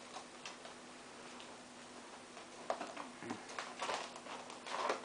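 Irregular light clicks and scratches of a cat's claws hooking into denim jeans as it climbs a person's leg, growing busier from about halfway and ending in a louder scuffle.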